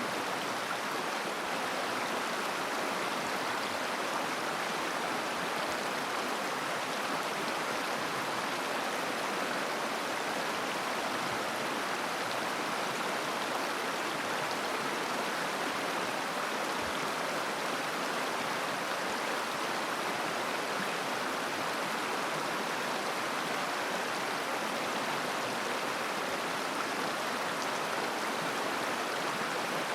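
Mountain river flowing over stones, a steady babbling rush of water.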